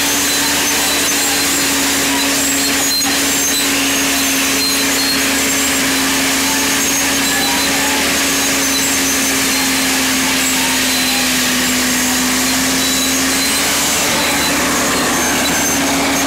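FiatAllis AD20B crawler dozer's Iveco diesel engine running steadily under load while ripping, heard close from the operator's seat. Its pitch sags slightly about two-thirds of the way through and recovers near the end.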